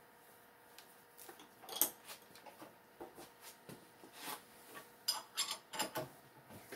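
Light scattered clicks and metal clinks of parts being set in a milling-machine vise and a wrench being picked up off the steel table, with a quick run of sharp clinks about five to six seconds in.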